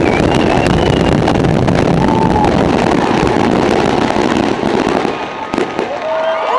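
Fireworks finale barrage: a dense, continuous run of bangs and crackling that thins out about five seconds in, leaving a few last separate bangs. Near the end the crowd starts cheering and whistling.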